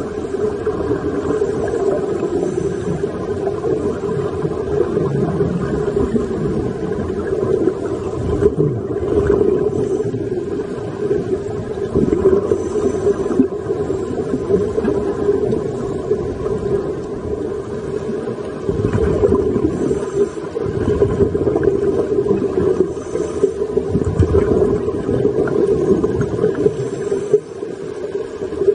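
Underwater noise heard through a diving camera: scuba divers breathing through their regulators, a dense rumbling hiss of exhaled bubbles that swells in surges every several seconds.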